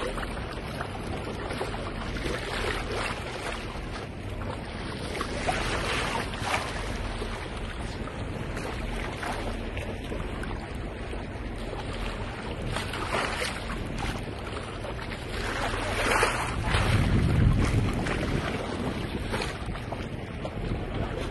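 Wind buffeting the microphone over the rush of sea water along a boat's hull, with louder surges now and then; the strongest, with a deep rumble, comes about three-quarters of the way through.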